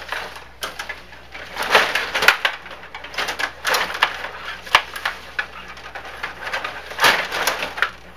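Stiga Stanley Cup table hockey game in play: quick, irregular clacks and rattles as the rods are spun and slid and the plastic players knock against the puck and the table.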